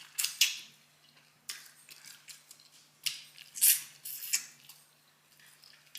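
Close-up eating sounds: a person biting into and chewing pork ribs, with wet, smacking mouth noises in several short bursts, the loudest about three and a half seconds in.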